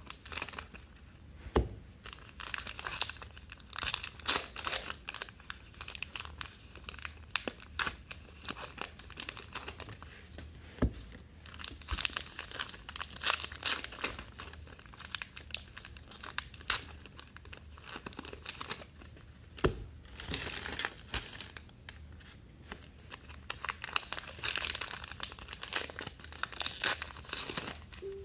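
Foil wrappers of 2019 Topps Allen & Ginter baseball card packs being torn open and crinkled by hand, an irregular run of crackling and tearing. There are three dull knocks, about a second and a half in, near the middle and about two-thirds through.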